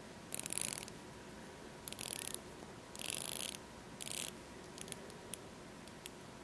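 Faint ratcheting clicks from a mechanical wind-up wristwatch being turned by hand, in four short bursts about a second apart, followed by a few single ticks.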